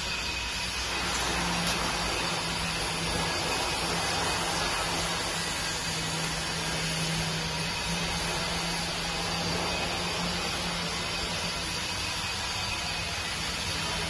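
The small concrete pump's electric motor and hydraulic pump are running, giving a steady hum under an even hiss.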